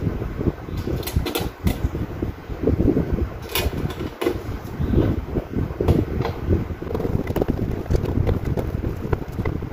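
Light metallic clicks and clinks from parts being handled as the protective mesh guard is fitted over the lamp in an air fryer's lid, over a steady rushing fan-like background noise.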